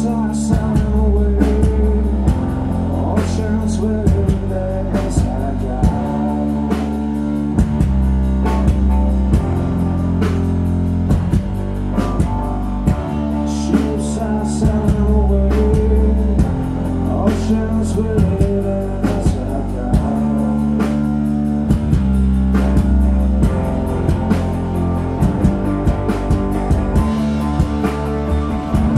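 Psychedelic rock band playing live: electric guitar over a heavy bass guitar line with a drum kit keeping a steady beat.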